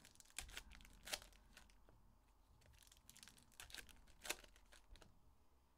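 Foil trading-card pack being torn open and its wrapper crinkled by hand, in faint scattered rustles with two sharper crackles, one about a second in and one a little past four seconds.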